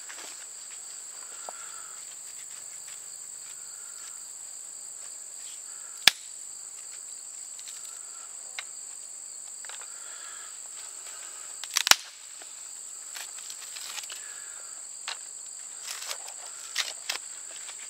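Tulip poplar bark being stripped by hand from a branch, with faint rustles and ticks and two sharp snaps, about six and twelve seconds in, over a steady high buzz of insects.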